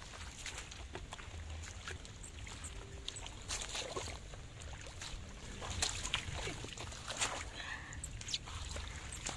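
Hands and feet splashing and sloshing in shallow muddy floodwater among grass: irregular small splashes and squelches over a low steady rumble.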